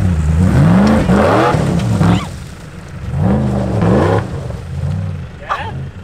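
Nissan Pathfinder engine in low range, revving up and falling back twice, with a rushing noise rising with each rev, then running more steadily.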